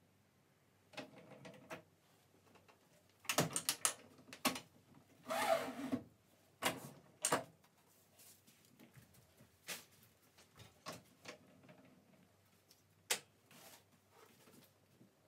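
Stacks of paper being handled on a guillotine paper cutter's table: a series of knocks and clicks, with a cluster of knocks a few seconds in and a second-long scraping rustle of paper sliding soon after, then a few single clicks.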